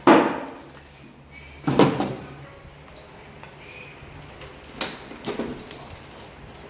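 A few sharp thumps or knocks: the loudest right at the start, another about two seconds in, and two smaller ones near five seconds.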